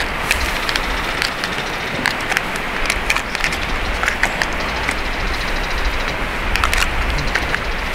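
Wood fire crackling, with frequent irregular sharp pops, over a steady rushing noise.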